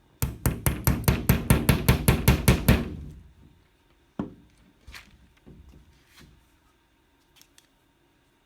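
A hammer tapping quickly and repeatedly, about six strikes a second for under three seconds, as a metal pick is driven through a plastic map sheet into the wall to mark a point. A few single, softer knocks follow.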